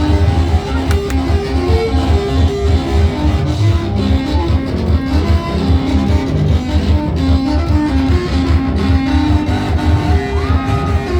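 Praise music played on guitars over a heavy, pulsing bass line, picked notes running steadily throughout.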